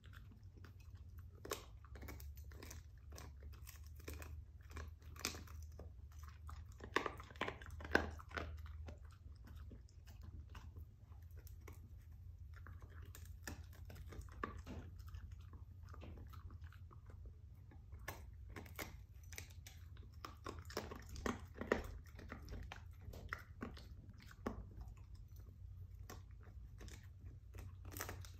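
A dog chewing and crunching on a rawhide bone: irregular crackling bites, loudest about seven to eight seconds in and again around twenty-one seconds in, over a low steady hum.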